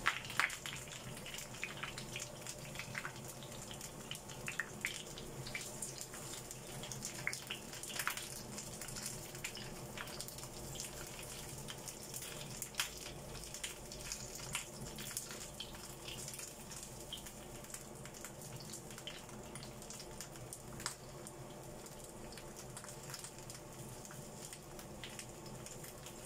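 Eggplant wedges frying in oil in a frying pan: a steady sizzle with scattered crackles and pops.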